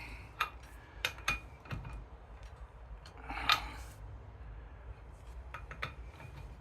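Metal hand tools and propeller hardware clinking against each other: a few sharp clinks in the first two seconds, a short rattle about three and a half seconds in, and more light clinks near the end.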